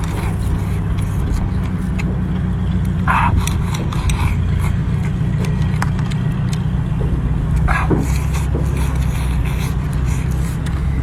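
Steady low mechanical rumble, like a running engine, with scattered light clicks and two short scraping sounds about three and eight seconds in.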